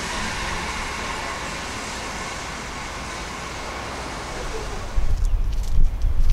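Rolling rumble and hiss of a departing heritage train's carriages on the rails, fading steadily as it recedes. About five seconds in it gives way to loud, uneven low thumping rumbles with a few sharp clicks.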